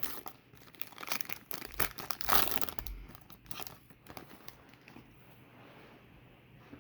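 Trading card pack wrapper being torn open and crinkled by hand: a run of sharp crackles in the first few seconds, loudest about two and a half seconds in, then dying away to faint handling.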